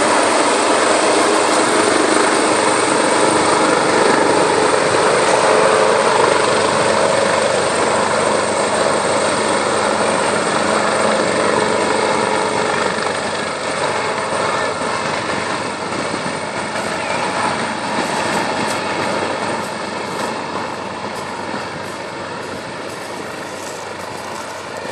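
Search-and-rescue helicopter hovering low over the sea with a steady rotor and engine noise, which slowly grows fainter in the second half as the helicopter moves farther off.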